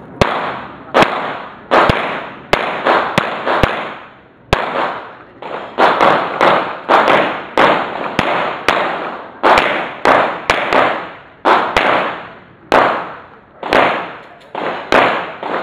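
Pistol shots fired in rapid pairs and strings, about thirty in all with brief pauses between strings, each crack followed by a long echo.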